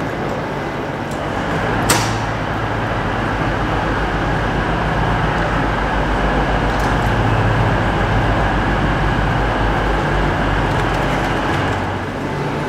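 Railway station concourse ambience: a steady rumble and hum with a faint low throb underneath, and one sharp clack about two seconds in.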